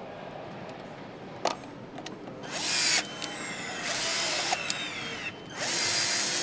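Bosch Exact cordless screwdriver running in three short spurts with brief gaps between them, its whine sliding down in pitch, as it drives screws into a motorcycle's ignition-lock bracket. A single click comes about a second and a half in.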